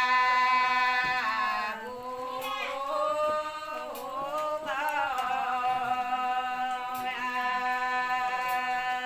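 Three women singing together without accompaniment, a slow chant of long held notes in unison. The pitch glides down between notes about two seconds in and again about four seconds in.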